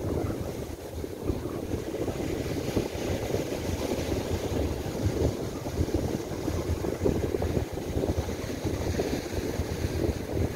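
Strong gusting wind buffeting the microphone, with surf breaking on the beach.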